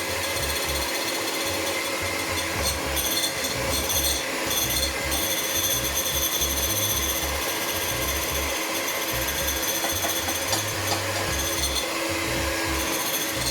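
Electric hand mixer running steadily, beating eggs while sugar is added a little at a time.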